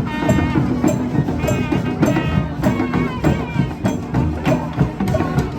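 Street band playing: horns sounding short melodic notes over percussion striking about twice a second.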